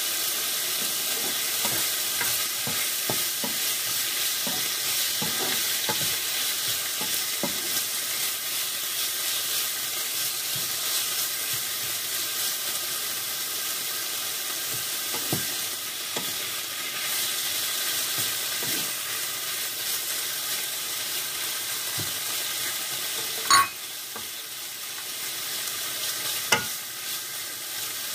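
Sliced chicken breast and onion sizzling in a frying pan, stirred with a wooden spatula that scrapes and clicks against the pan. Two sharp knocks near the end.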